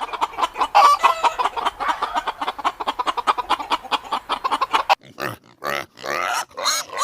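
Chickens clucking: many short, rapid clucks for about five seconds, then a few separate, longer calls.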